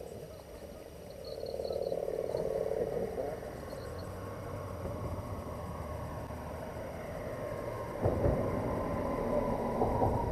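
A frog calling with a rapid pulsed trill about one to three seconds in. From about eight seconds in, a louder, rough sound starts suddenly.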